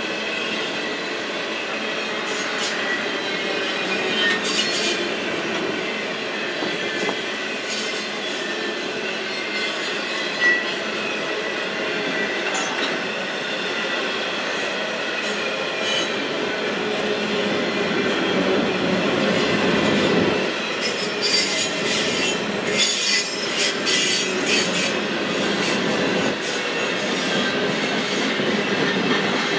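Double-stack container cars of a Union Pacific intermodal freight train rolling past: a steady rumble of steel wheels on rail with high, thin wheel squeal. Clicking of wheels over rail joints grows more frequent over the last third.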